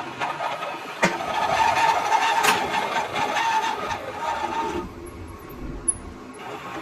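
Metal being cut on a lathe: a sharp knock about a second in, then a steady scraping cutting noise that eases off near five seconds.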